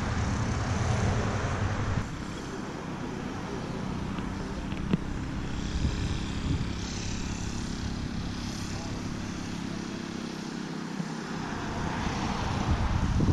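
Outdoor roadside background with the noise of passing vehicles. The background drops abruptly about two seconds in, and a vehicle passes, growing louder, near the end.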